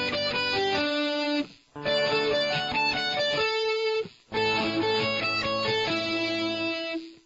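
Electric guitar playing arpeggios: three quick runs of single picked notes, each broken off by a brief pause, the last ending on a held note that stops just before the end.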